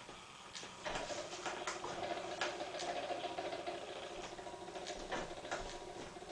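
Faint scattered ticks and light scraping from a hand working a wooden lever beam, over a steady hum that comes in about a second in.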